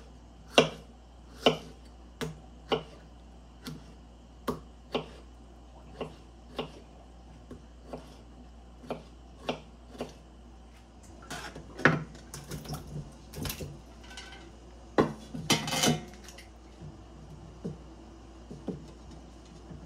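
Kitchen knife chopping peeled tomatoes on a wooden cutting board: sharp separate taps of the blade on the board, about one or two a second, with a denser run of louder knocks and clatter about two-thirds of the way through.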